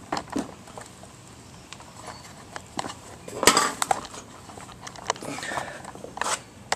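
Handling noise: scattered knocks, clicks and light metallic clinks as the camera and tools are moved about, loudest in a short rustling bump about three and a half seconds in.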